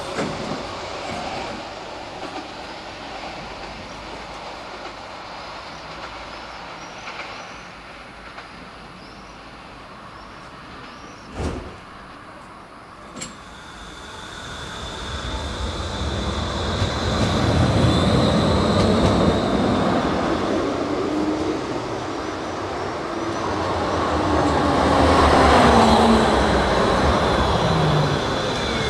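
Pesa Swing tram pulling into the stop: the rumble of wheels on rails builds up, and its motor whine falls in pitch as it brakes near the end. Two sharp clicks come about halfway through, and a faint steady high tone runs through the second half.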